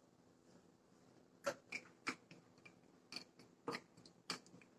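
Spatula stirring cashews in hot ghee in a nonstick frying pan. It makes faint, sharp, irregular clicks and taps, starting about a second and a half in.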